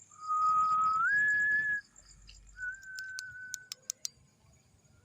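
Whistling: one long whistle held on a single note, stepping up in pitch about a second in, then a second, shorter whistle on one note. Insects chirr with an even pulse behind it, and a few sharp clicks come near the end.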